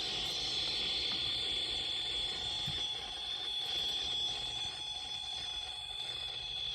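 A homemade experimental sound machine giving a steady high-pitched whine with a fainter lower hum over a constant hiss.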